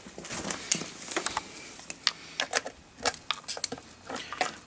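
Irregular sharp clicks and clatter of 12-volt leads being handled.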